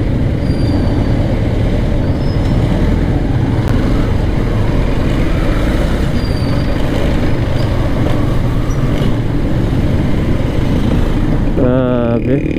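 Motorcycle running at low speed in slow, congested city traffic. Its engine blends with the steady rumble of the jeepneys and tricycles around it.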